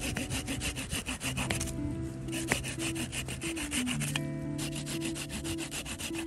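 Bahco Laplander folding saw cutting through a piece of firewood in quick, even back-and-forth strokes, pausing briefly twice.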